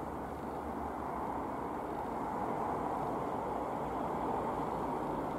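Jabiru UL-450 light aircraft's four-cylinder Jabiru 2200 engine and propeller droning steadily as it flies overhead, growing slightly louder about halfway through.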